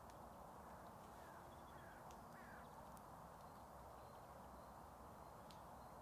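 Near silence of open woodland: a faint steady hiss, with a bird calling three short, faint, falling notes in quick succession between about one and two and a half seconds in.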